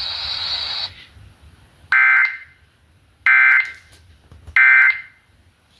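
Emergency Alert System SAME digital data bursts: short, loud, buzzy two-tone warbles repeated three times about 1.3 s apart, the end-of-message code that closes a broadcast weather warning. They follow a stretch of hiss with a steady high tone that cuts off about a second in.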